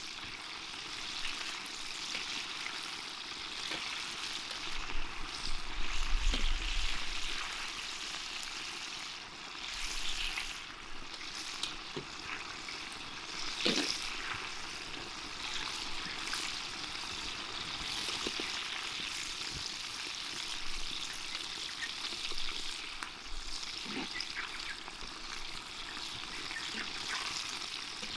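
Karaage (chicken pieces) deep-frying in hot oil: a steady sizzle with scattered small pops and crackles. A low rumble comes in about five seconds in and passes within a few seconds.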